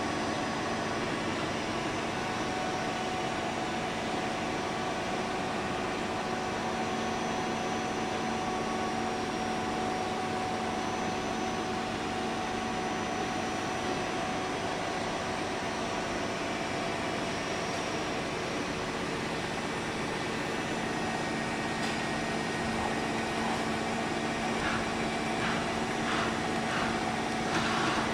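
Nakamura-Tome TW-20M CNC lathe running under power: a steady hum holding several fixed tones. A few light clicks come in near the end.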